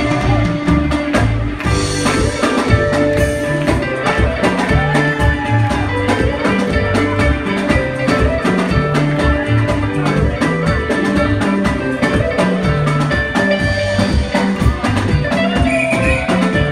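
Live band playing at a steady beat: electric guitar lines over bass guitar and drum kit.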